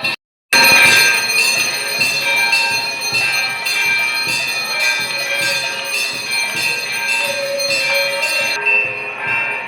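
Hindu temple bells rung continuously for the mangala aarti, many overlapping metallic tones clanging together. The sound drops out completely for a moment just after the start.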